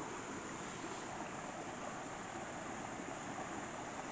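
Faint, steady rush of river water flowing over a shallow riffle.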